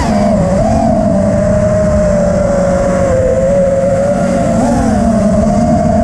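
FPV quadcopter's brushless motors whining steadily in flight. The pitch settles down from a brief throttle punch at the start and lifts slightly about five seconds in.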